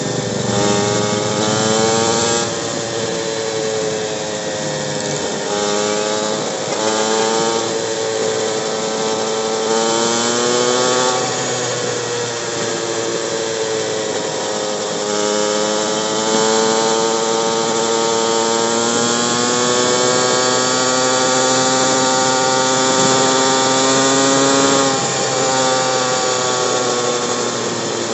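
Motorcycle engine running under the rider, its pitch climbing as it accelerates and dropping as it eases off, several times over, with a steady rush of wind.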